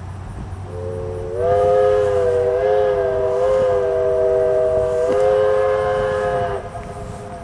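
A steam locomotive's chime whistle sounding one long blast of about five seconds, several notes at once in a chord that wavers slightly in pitch. It starts softly, swells to full strength, then cuts off, with a fainter tone lingering briefly after.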